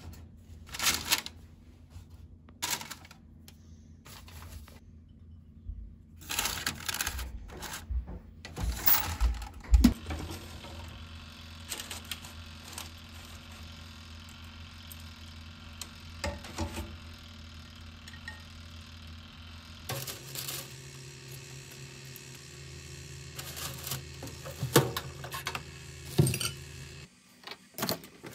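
Metal clatter and knocks from a toaster oven's door and wire rack being handled, several sharp knocks in the first ten seconds and a few more near the end, over a steady low hum that shifts in pitch partway through.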